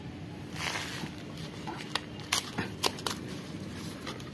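Footsteps and claw clicks of a dog and cats walking on concrete: a few scattered sharp clicks, clustered in the second half, with a brief hiss about half a second in.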